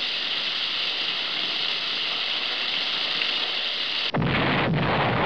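Cartoon sound effects: a steady hiss, then about four seconds in a sudden, louder explosion that carries on.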